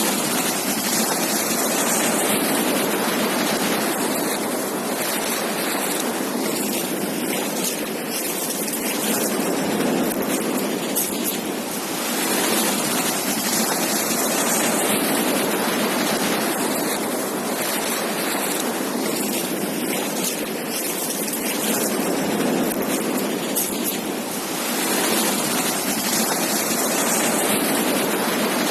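Ocean surf breaking and washing up a beach: a continuous rush that swells and eases as the waves come in, with the loudest surges about a second in, near the middle and a few seconds before the end.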